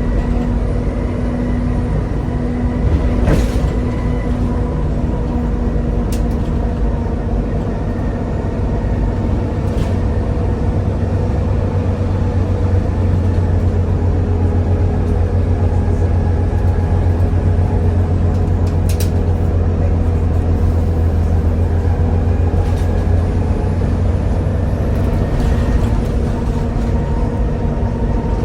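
Volvo B7TL double-decker bus with a ZF automatic gearbox, heard on board while driving: its six-cylinder diesel drones steadily under a steady gearbox whine. The low drone grows heavier and louder through the middle stretch. A few sharp knocks or rattles from the bodywork come about three seconds in, around ten seconds and near nineteen seconds.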